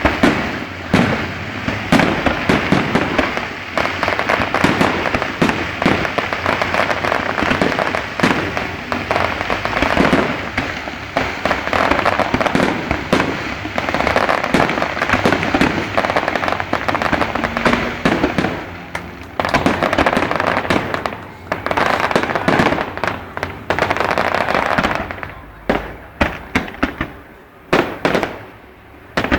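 Aerial fireworks display: a dense, continuous barrage of bursts and crackling that thins to separate bangs with short gaps near the end.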